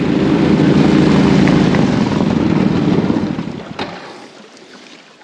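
The amphibious mini jeep's small engine running steadily, then dying away about three seconds in and stopping a second later. It has stalled on the water, which the owner puts down to the plug lead: its spark plug cap has got wet.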